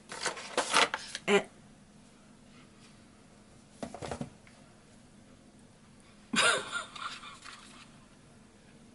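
Cardboard razor-kit box being handled and opened: a quick run of cardboard rustles and taps in the first second and a half, a brief rustle about four seconds in, and a louder, longer rustle and scrape a little after six seconds as the packaging tray comes out.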